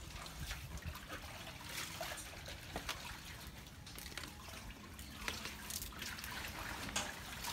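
Faint trickling and small splashes of water in a washing basin, with scattered light clicks and knocks.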